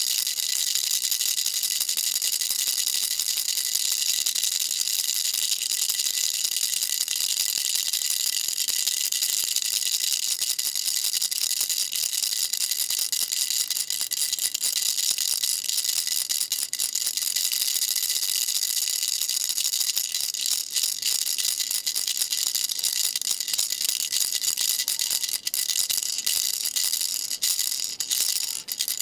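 Baby rattle shaken continuously: a dense, fast, bright rattle with a steady high ring underneath, broken by a few short pauses near the end.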